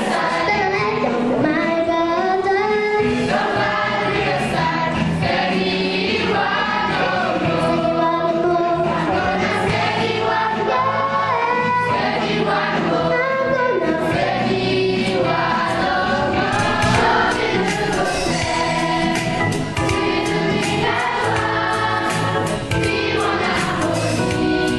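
Children's gospel choir singing a song, picked up through stage microphones, with the sung melody moving and changing continuously.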